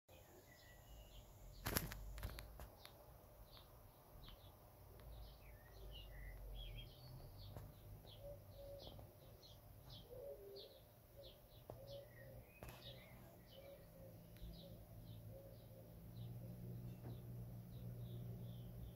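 Small birds chirping faintly, many short high chirps in quick succession, over a low steady hum. There is one sharp knock about two seconds in.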